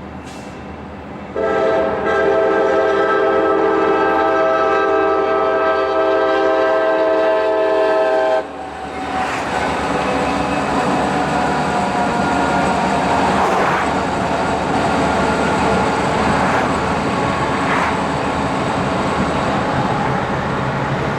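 Horn on a pair of CSX SD40-2 diesel locomotives sounding one long blast of about seven seconds, a chord of several held notes. After it cuts off, the locomotives' 16-cylinder EMD 645 diesel engines and the train run on steadily.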